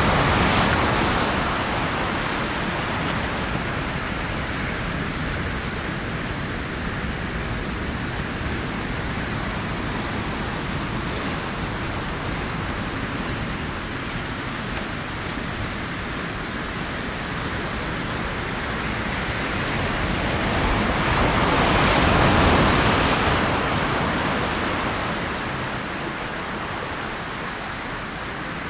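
Ocean waves washing on the shore, a steady rushing surf with a wave swelling and breaking about 22 seconds in, and another breaking right at the start.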